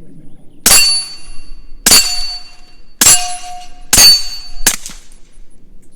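Five suppressed 9mm Glock pistol shots with 147-grain poly-coated rounds, about a second apart, the last two closer together. Each shot is followed by the ringing clang of a steel target being hit. These are the first rounds through the suppressor, which fill it with gas.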